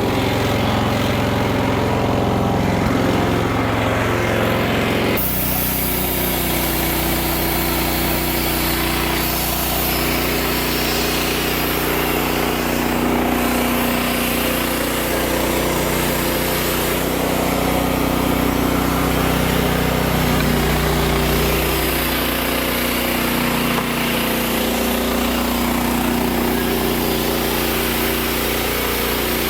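Wood-Mizer LX55 portable bandsaw mill running steadily. About five seconds in, its sound shifts abruptly to a deeper, fuller pitch.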